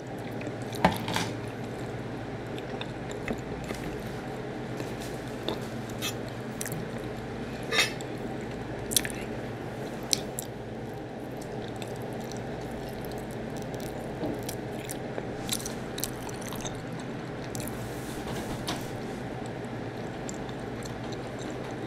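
Close-miked eating sounds: wet chewing and smacking while eating BBQ rib meat, macaroni and cheese and corn, with scattered sharp clicks over a steady low hum.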